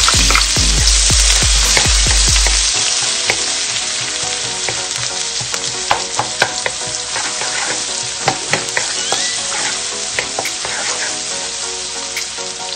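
Chopped onion sizzling loudly in hot annatto oil in a nonstick wok, stirred with a wooden spoon that clicks and scrapes against the pan. The sizzle is strongest as the onion goes in and eases off gradually.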